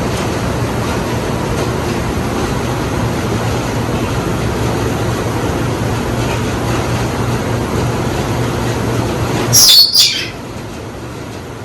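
Hampton Bay Windward II ceiling fan running with a steady whoosh and motor hum, held below full speed by a bad capacitor. Near the end come two sharp, high chirp-like sounds about half a second apart, after which the running sound is quieter.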